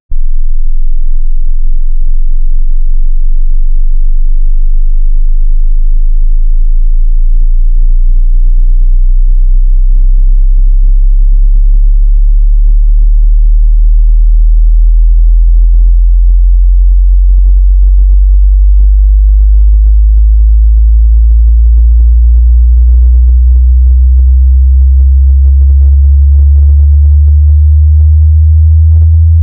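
Hearing-test sine tone, loud, starting very low and climbing slowly and steadily in pitch: the bottom of a frequency sweep through the range of human hearing.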